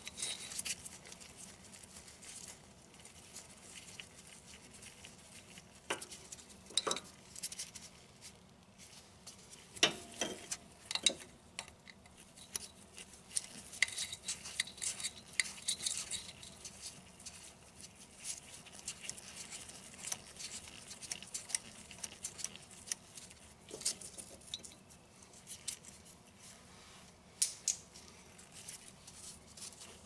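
3/8-inch hand ratchet clicking and small metal clinks as two 10 mm bolts are spun out of a transmission range switch. Scattered faint clicks and taps, with a run of quick fine ratchet ticking partway through.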